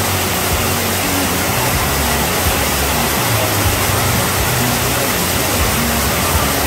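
Heavy tropical downpour pounding a wet paved road: a loud, steady, dense hiss of rain.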